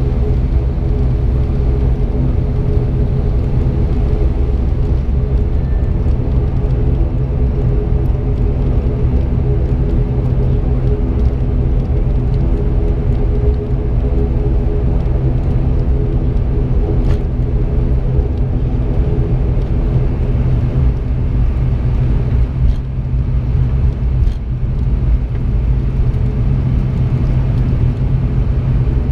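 ATR72-600's Pratt & Whitney PW127M turboprop engines and six-blade propellers turning at low power during taxi, heard from inside the cabin: a steady low hum made of several held tones, with no change in power.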